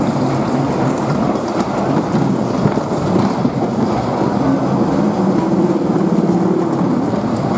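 Ghost-train ride car rumbling steadily along its track through the dark.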